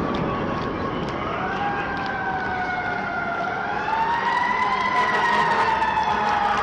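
An emergency vehicle siren wailing over city street noise. It comes in about a second in and slowly rises and falls in pitch.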